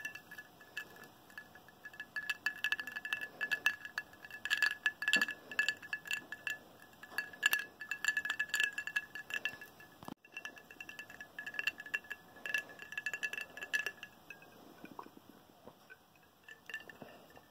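Glass whisky tumbler clinking over and over with a light ringing; the clinks stop about fourteen seconds in.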